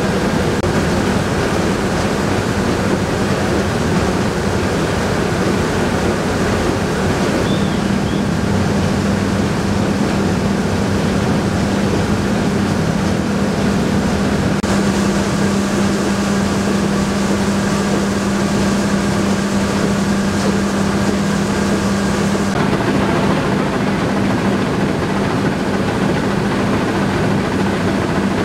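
Rice mill machinery running steadily: a loud rushing noise over a constant low hum, which grows stronger about a quarter of the way in, with a higher hiss added in the middle.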